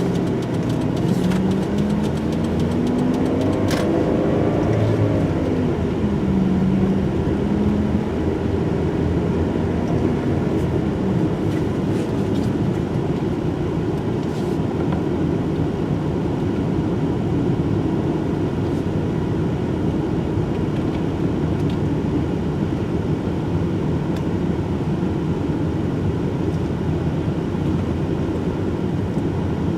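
Car being driven: the engine's pitch climbs as it pulls away and accelerates over the first several seconds, then settles into steady engine and tyre noise while cruising.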